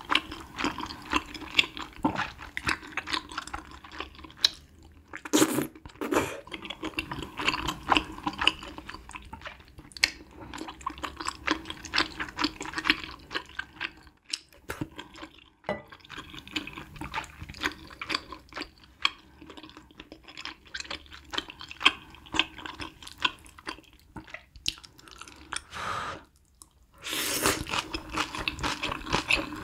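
Close-miked eating of spicy hot pot noodles: wet chewing and smacking mouth sounds. There is a short slurp about five seconds in and a longer slurp of noodles near the end.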